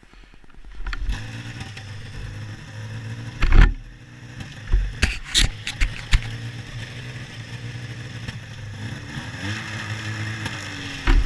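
Polaris two-stroke snowmobile engine catching about a second in and settling into a steady idle, with a few loud knocks and a brief rise in revs near the end.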